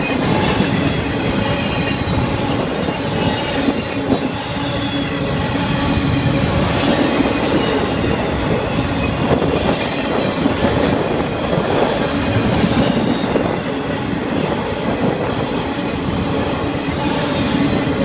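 Intermodal freight cars rolling past close by: a steady rumble and clatter of steel wheels on the rails, with a faint steady whine of wheels over it.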